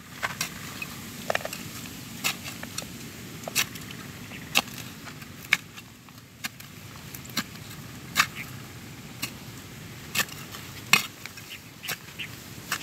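Small hand trowel digging and scraping in crumbly soil, with sharp irregular clicks and crunches about once a second.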